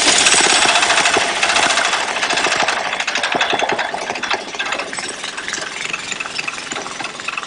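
Small single-cylinder Honda petrol engine, taken from a water pump and fitted to a bicycle, running with a rapid even beat, gradually getting quieter toward the end.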